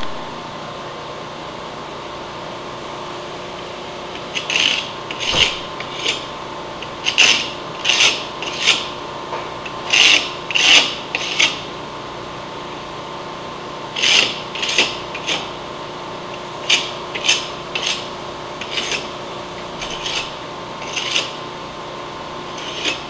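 A hand pull scraper scraping dried glue squeeze-out off the seams of a glued-up hardwood cutting board. It makes short rasping strokes, about one or two a second, in two runs with a pause of a couple of seconds between them.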